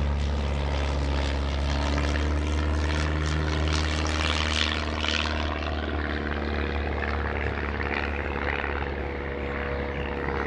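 Light single-engine propeller airplane flying past, its engine and propeller running steadily.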